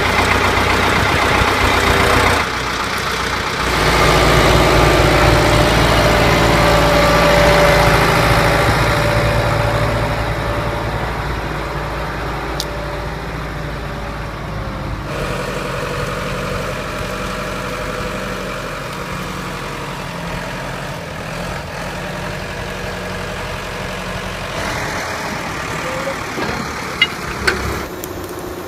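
Ford County 754 timber tractor's diesel engine running while its hydraulic crane works a grapple. The engine is louder for several seconds early on, then settles into a steadier, lower run, with a few sharp knocks near the end.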